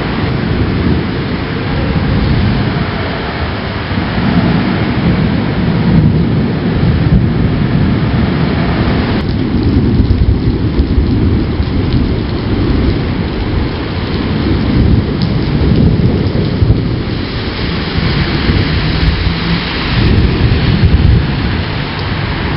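Heavy rain pouring down with thunder rumbling through it during a severe thunderstorm, the low rumble swelling and fading.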